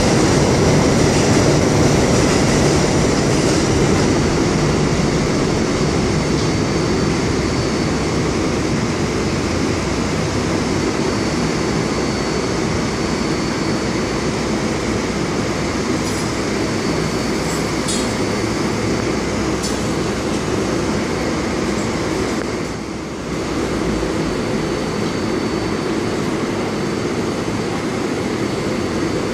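New York City subway train standing in the station with its doors open, its ventilation and electrical equipment running in a steady loud hum and rush with a thin high whine. A few faint clicks come about two thirds of the way through.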